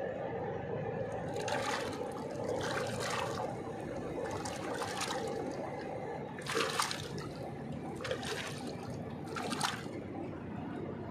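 Water splashing and sloshing in about six short bursts over a steady low drone.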